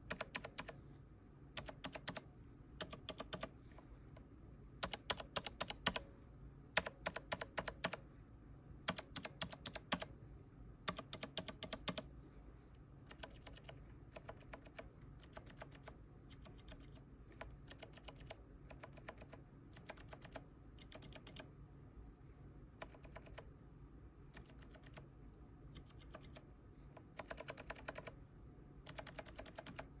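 Mechanical keyboard keycaps pressed repeatedly in quick bursts of clacks. A stock keycap clacks loudest through roughly the first twelve seconds. Then a keycap silenced with a felt insert gives quieter, duller clacks, and a louder run of clacks returns near the end.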